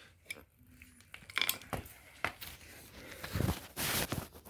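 Handling noises: a few scattered clicks and knocks with crinkling and rustling as a disconnected mower part is moved about and readied to be poured out, with a short noisy rustle near the end.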